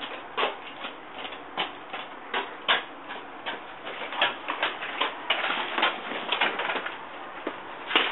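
Small footsteps on a concrete path, an irregular patter of light taps about two or three a second, with a few louder clicks.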